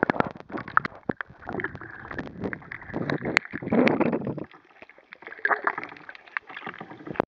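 Water splashing and sloshing around a capsized sit-on-top kayak, with a quick run of sharp splashes and knocks in the first second. It goes quieter after about four and a half seconds, with only scattered splashes.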